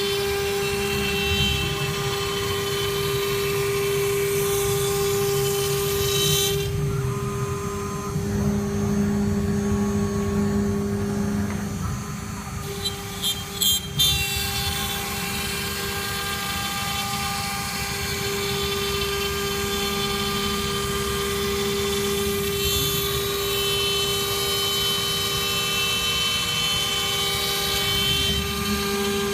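CNC router spindle running with a steady whine over a cutting hiss. The hiss drops away for several seconds in the middle, and a few sharp clicks come about 13 seconds in.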